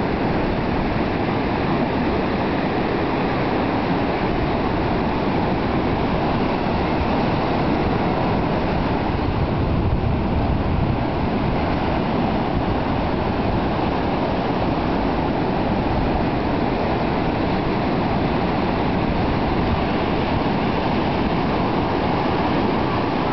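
Steady rushing noise of wind and surf at a beach, heaviest at the low end and unbroken throughout.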